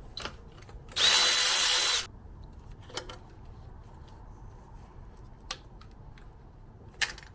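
A handheld power tool runs for about a second with a steady whine, undoing the fasteners of the engine's coolant reservoir. A few light clicks of metal parts being handled follow.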